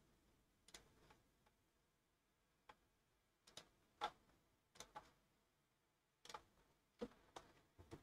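Faint, scattered clicks of a computer mouse and keyboard, about a dozen, irregularly spaced and some in quick pairs, over near silence.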